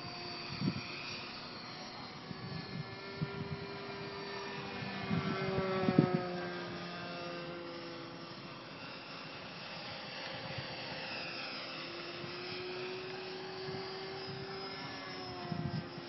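O.S. .46 two-stroke glow engine of a radio-controlled Seagull P-51 Mustang model flying overhead, a steady engine note that is loudest and drops in pitch as the plane passes about six seconds in, then drops again near the end. A few low thumps on the microphone.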